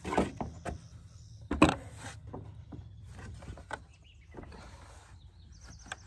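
A plastic milk crate being handled and set down close by, with one loud knock about one and a half seconds in, then softer taps and rustling as she settles behind it.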